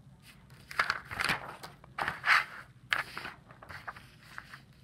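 Sheets of paper rustling and sliding on a desk as a test page is shifted and a pink cover sheet moved over it, in a few short bursts.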